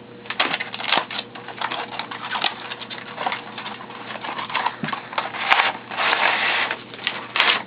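Retail box being opened and its contents handled: a run of irregular clicks, taps and rustles, with a longer rustling scrape about six seconds in.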